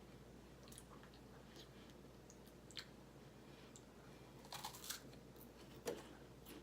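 Faint chewing of a crisp wafer cookie: soft, scattered crunches, with a small cluster about four and a half seconds in and one sharper crunch near the end.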